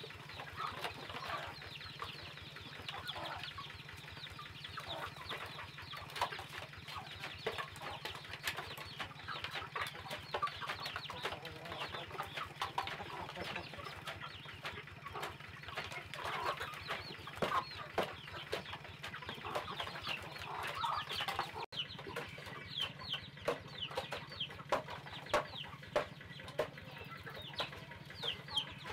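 A flock of young chickens clucking and giving many short falling peeps while they feed, with frequent small clicks and taps of pecking.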